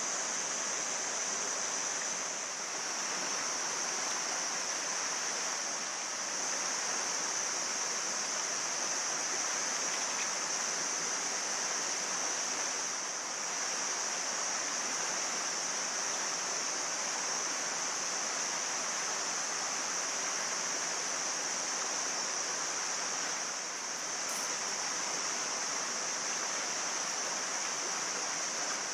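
Mountain stream flowing: a steady, even rushing of water with a strong high hiss.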